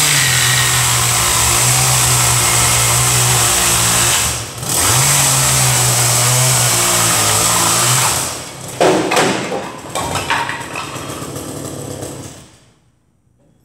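Handheld electric power tool working on wooden framing, run in two long bursts. Each burst spins up quickly to a steady whine. After the second burst it runs unevenly, with a few sharp knocks, and stops near the end.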